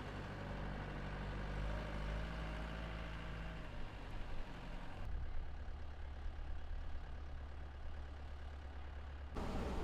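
A heavy engine idling with a steady low hum, with a noisy outdoor background. The sound changes abruptly about five seconds in and again near the end, where one stretch gives way to another.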